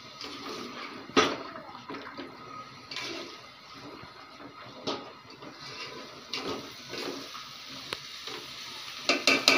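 Boiled chana dal frying in masala in a metal pot while a spatula stirs it: a steady sizzling hiss with the spatula scraping and knocking on the pot. There is a sharp knock about a second in and a quick run of knocks near the end.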